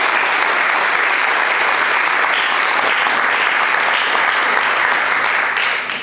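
Audience applauding steadily, dying away quickly near the end.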